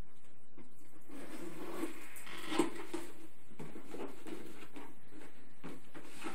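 Louis Vuitton Speedy 35 handbag in Damier Azur coated canvas being handled and set down on its dust bag: rustling with scattered light clicks and knocks, the sharpest about two and a half seconds in.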